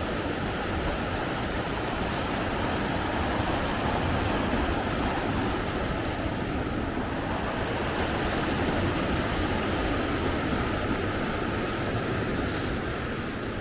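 Rushing water of a mountain stream, a steady full roar of flowing rapids.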